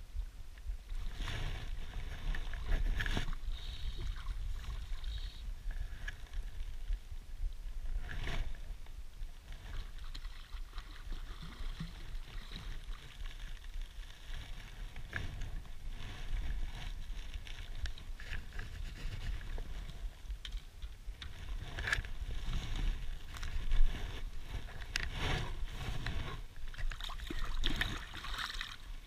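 Water splashing and sloshing at the lake's edge as a hooked rainbow trout is played and brought in, over a steady low wind rumble on the microphone, with scattered knocks and one sharp knock near the end.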